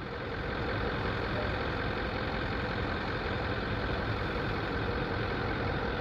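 An engine running steadily, swelling a little over the first second and then holding level.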